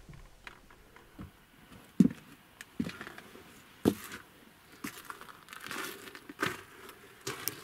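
Footsteps crunching in trampled snow, irregular, with a few sharp knocks; the loudest knock comes about two seconds in.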